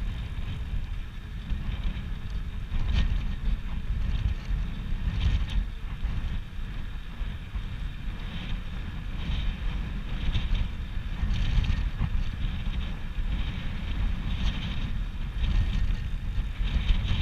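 Wind buffeting the camera microphone while riding a bicycle, a rough, steady rumble that keeps rising and falling, with a higher hiss that comes and goes.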